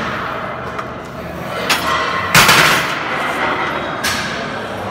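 Sharp metal clanks and knocks from a plate-loaded vertical leg press as the set ends and the weighted sled is racked. There are a few strikes, the loudest about two and a half seconds in, with a short ring after it.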